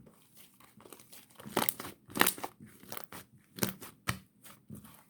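Sticky, fluffy slime being squished and pulled by hand, giving off irregular sharp pops and crackles as air pockets burst, loudest about two seconds in.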